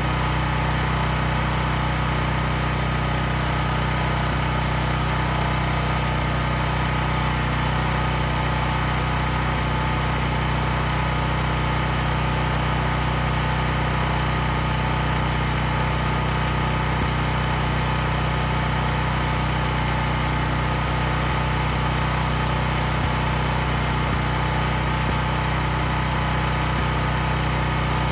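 Champion 11500/9200 W portable generator's gasoline engine running steadily just after starting, with no load on it (main breaker off).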